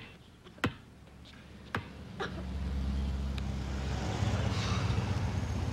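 A basketball bounced on asphalt three times, then a low vehicle engine rumble that swells in from about two seconds in, like a car or bus passing by.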